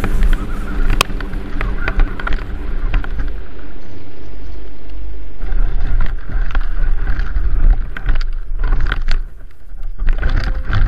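Radio-controlled Honcho trail truck driving over rocks and through dry brush: its electric motor and drivetrain whine, with frequent sharp clicks and knocks from sticks and stones hitting the truck. The drive noise holds steady for a couple of seconds near the middle and dips briefly near the end.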